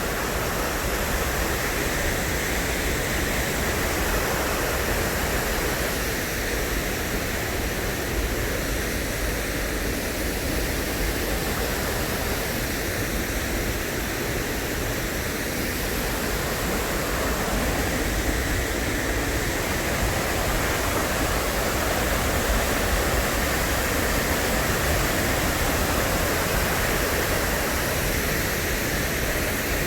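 Steady rush of Miners Falls, a waterfall pouring down a rock face.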